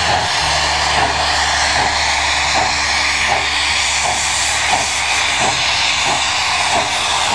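NSW C36-class steam locomotive 3642 blowing off steam: a loud, steady rushing hiss, with a faint beat about every two-thirds of a second beneath it.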